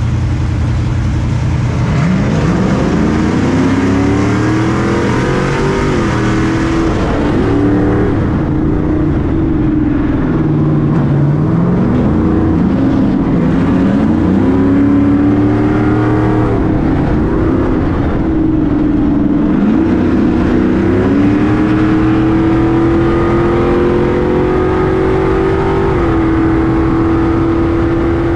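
Stadium Super Truck's V8 engine under race throttle, its pitch rising and falling again and again as it accelerates and backs off. Near the end it climbs steadily for several seconds, then drops.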